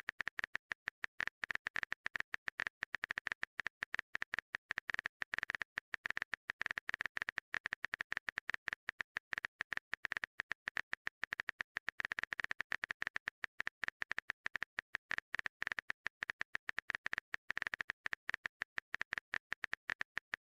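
Keyboard typing sound effect: a fast, uneven run of short clicks, all at one level.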